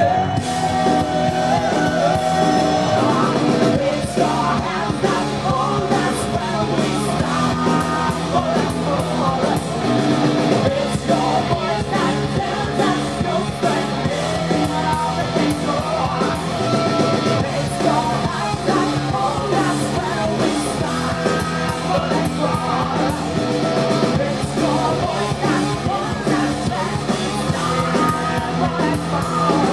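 Live heavy rock band playing at full volume: electric bass, distorted guitar and drums through amplifiers, with a female vocalist singing and shouting over them.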